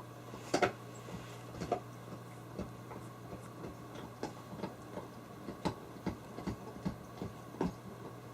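Irregular light clicks and knocks, about a dozen spread over several seconds and the loudest about half a second in, over a steady low hum.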